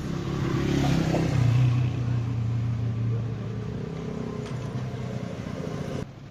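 A car engine running, loudest about a second and a half in and then fading, with the sound cutting off suddenly near the end.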